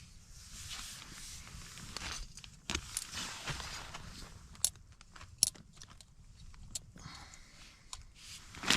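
Rustling and handling of camping cooking gear, with several sharp clicks and knocks, two of them standing out about halfway through.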